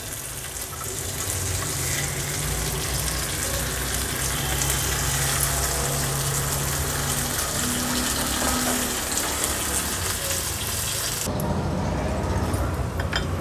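Black pomfret pieces sizzling in shallow oil on a tawa, a steady hiss that cuts off about eleven seconds in.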